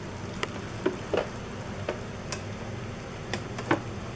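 Irregular light clicks and taps of a plastic dot matrix printer's casing and loose parts being handled, about seven in four seconds, over a steady low hum.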